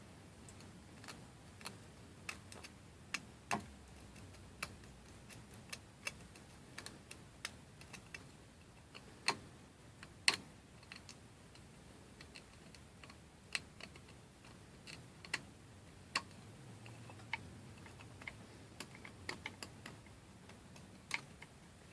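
Irregular small clicks and taps of hard plastic being handled and picked at, as support material is cleaned off a PLA 3D print. One tap about ten seconds in is louder than the rest.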